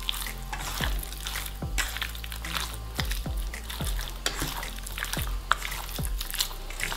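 Wet squelching of hands kneading marinated raw chicken pieces in a stainless steel bowl, over background music with a steady beat.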